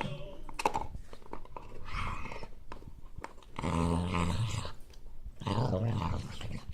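Staffordshire Bull Terrier growling a strange growl while guarding its bone, in long drawn-out bursts, the two loudest in the second half.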